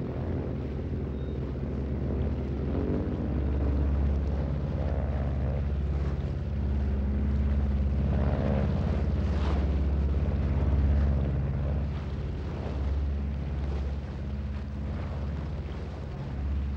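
A boat engine running steadily, a low hum that swells and eases a little, with a few brief swishes about halfway through.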